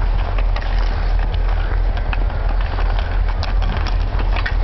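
Wind buffeting the microphone as a steady low rumble, with scattered clicks and clacks of skates and hockey sticks on ice.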